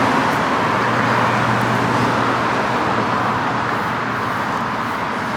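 Steady road noise of a car on the move: a constant hiss with a low, even hum.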